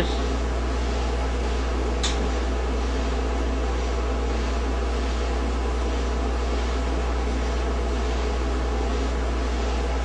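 GE gas dryer running, a steady mechanical hum of its motor and drum, with a brief click about two seconds in.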